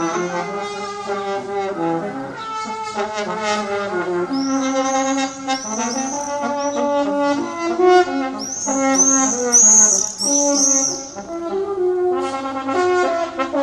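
The so-called 'strange sound': long, loud, brass-like groaning tones that hold and then step up and down in pitch. Quick high chirps cut in twice across the middle, the second set the loudest moment.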